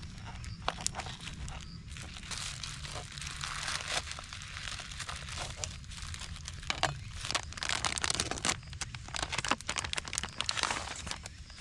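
Knife cutting through a bunch of chives on a cutting board, with many short sharp knocks of the blade, mixed with the crinkling of the plastic bag the chives are packed in. Near the end, a plastic food package crinkles as it is picked up.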